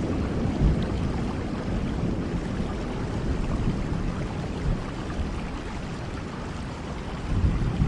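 Steady rainfall with a deep rumble of thunder that slowly dies away, swelling again slightly near the end.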